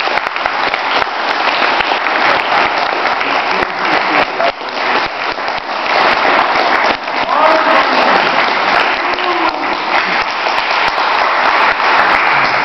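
Spectators applauding with dense clapping throughout, with a few voices calling out partway through.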